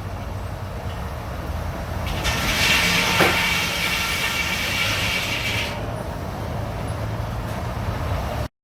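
Sawmill running with a steady low hum from its drive, and its saw cutting through a log for a few seconds in the middle, adding a high-pitched whine and hiss. The sound cuts off abruptly near the end.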